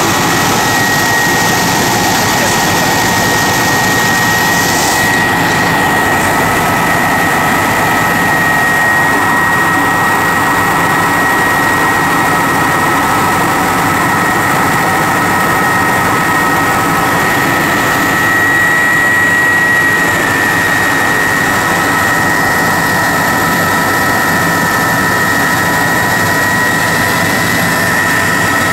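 Helicopter in flight heard from inside the cabin: a steady high engine whine over a constant rush of rotor and air noise. It grows a little louder and higher for a couple of seconds about two-thirds of the way through.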